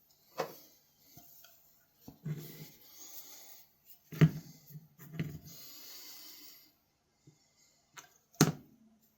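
Handling noise from working on a pocket knife at a bench: several sharp clicks and knocks, loudest about four seconds in and near the end, with short stretches of scraping and rustling between them.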